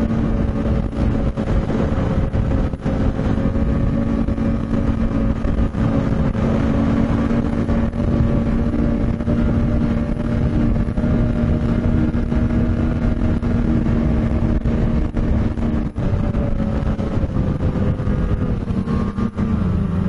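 Snowmobile engine running at a steady high cruising speed, a constant drone over rushing track and wind noise. About a second before the end the engine note drops as the sled slows.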